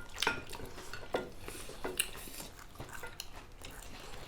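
Cutlery clinking and scraping against plates in scattered light clicks, a few with a short metallic ring.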